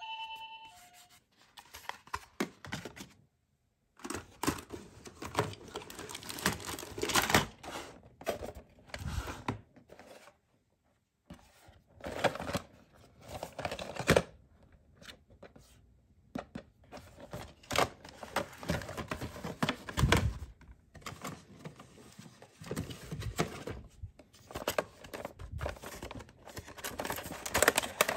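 Cardboard toy boxes and plastic blister packaging handled: irregular rustling, crinkling, tapping and knocks, with brief lulls. In the first second, a toy ambulance's two-tone siren ends.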